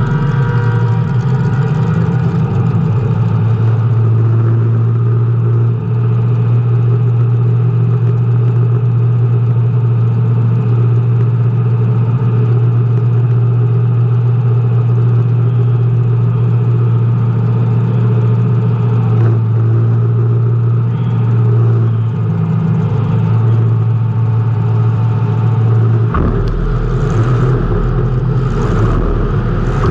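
Race car engine running hard at steady high revs. Near the end the steady note breaks off suddenly into a lower, rougher rumble as the revs change.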